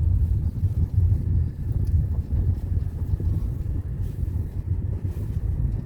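Vehicle on the move: a steady low rumble of engine and road noise, with wind buffeting the microphone.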